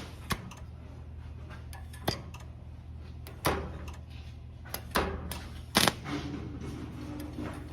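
A handful of sharp, uneven clicks and clanks of metal welding gear being handled, over a steady low hum.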